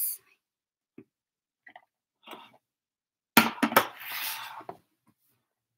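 A stainless steel tray holding salmon fillets set down on a countertop with a few sharp clanks, then shifted with a scraping rattle. A few faint taps come before it.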